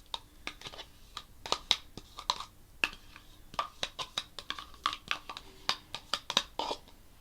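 A spoon scooping Greek yogurt from its pot into a bowl, with irregular clinks, taps and scrapes of the spoon against the pot and bowl rim.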